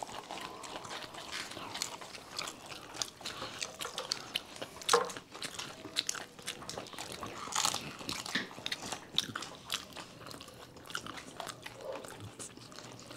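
Crisp pani puri shells being bitten and chewed: irregular crunches and wet chewing, with the sharpest crunches about five and eight seconds in.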